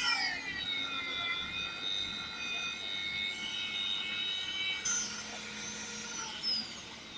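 Magnetic drill's electric motor whining under load while its cutter bores a 25 mm hole through a 20 mm steel base plate. The pitch dips sharply at the start, then holds fairly steady, and falls away near the end.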